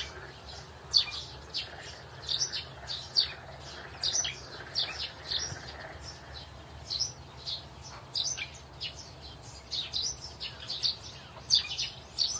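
Birds chirping: a continuous, irregular series of short, high chirps, several a second, over a faint low hum.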